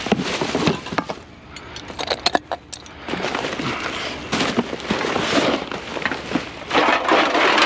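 A bag being handled and rummaged through: sharp clicks and clinks for the first few seconds, then a dense crackling rustle from about three seconds in.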